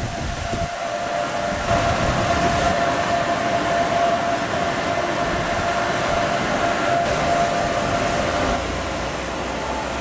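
Hot tub jets churning and bubbling the water, a steady rush with a steady mechanical whine running through it. It gets louder about two seconds in and drops in level near the end.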